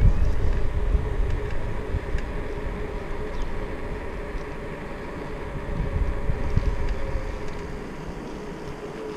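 Wind buffeting on a chest-mounted action camera's microphone while cycling, with road and tyre rumble. The low rumble gusts loudest at the start and again about six seconds in, over a faint steady hum.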